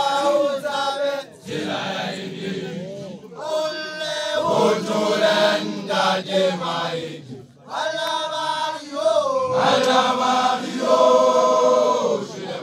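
Basotho initiates (makoloane) chanting together in unison, in long held phrases broken by short pauses for breath.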